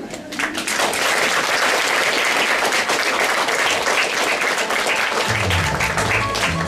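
Audience applauding; about five seconds in, music starts up underneath the clapping.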